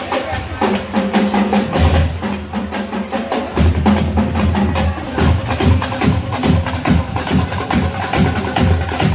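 Marching band playing: a fast, dense run of drum strokes over held low notes.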